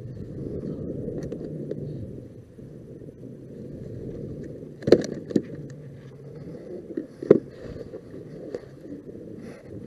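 Steady low rush of wind and water against a plastic kayak, with a few sharp clicks and knocks about halfway through and again a couple of seconds later as a fish is worked off a metal jig with pliers and laid on the deck.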